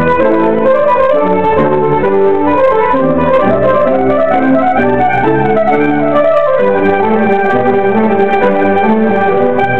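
Chamber ensemble playing: several instruments hold overlapping pitched notes in parallel parts, the harmony moving every fraction of a second, with a brief thinning of the texture about two-thirds of the way through.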